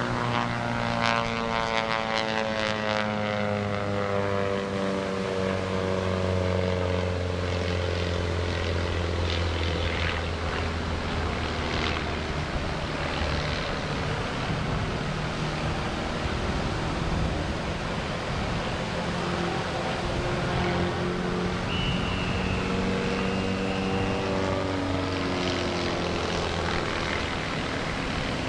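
Pitts aerobatic biplane's piston engine and propeller during an aerobatic routine, its note sliding down in pitch over the first few seconds, holding steady, then climbing again near the end.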